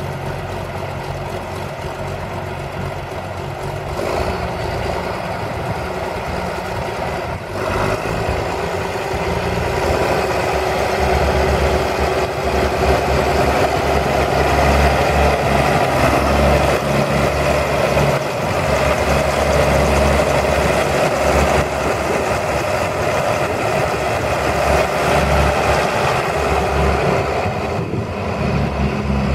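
A John Deere 4630 tractor's 6.6L six-cylinder turbo diesel running at a steady speed, getting louder about four seconds in and again around ten seconds.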